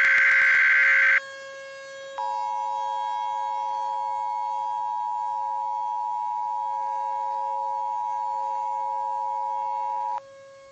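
Emergency Alert System tones. The last burst of a SAME digital header, a harsh warbling data screech, ends about a second in. About a second later comes the steady two-tone EAS attention signal, which lasts about eight seconds and cuts off just before the end. A faint steady tone hums underneath throughout.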